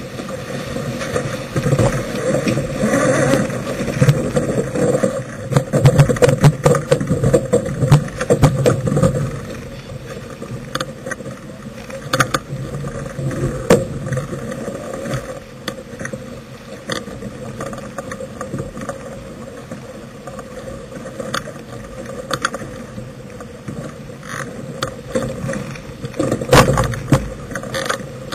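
Wind and water rushing past a sailboat under way, louder and busier in the first third and again near the end, with scattered sharp knocks and clicks.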